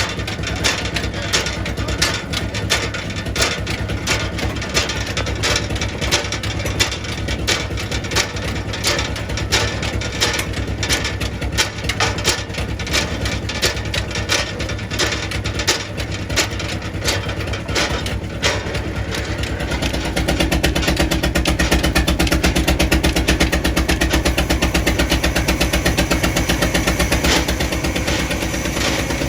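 Sawmill machine running with frequent sharp knocks and clatter. About twenty seconds in it turns louder and steadier, with a fast, even pulse and a steady hum.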